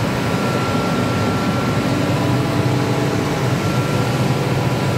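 Oil-injected rotary screw air compressor running: a steady, loud machine drone with a thin constant whine above it.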